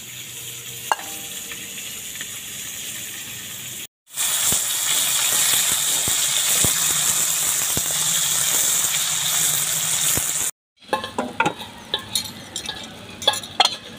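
Katla fish pieces frying in hot oil in a wok: a loud steady sizzle with a few sharp pops, starting about four seconds in after a quieter hiss. Near the end it cuts to a run of clinks and knocks of metal utensils.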